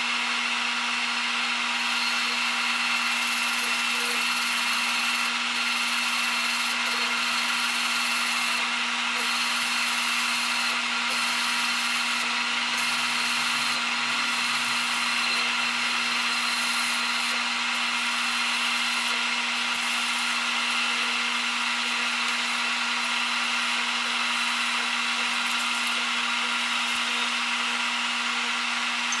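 Metal lathe running steadily at about 570 RPM with a constant whine, while its parting tool cuts a groove into a 1¼-inch metal bar to part off a piece.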